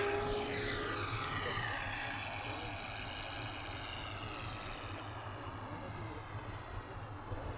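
Radio-controlled scale Hawker Hurricane model airplane taking off and climbing away, its engine and propeller loudest at the start and fading steadily as it recedes.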